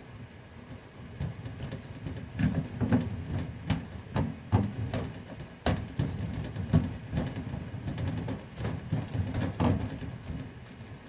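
Hands kneading and pressing raisin bread dough flat on a wooden chopping board: a run of irregular soft thumps and knocks, with a few sharper taps.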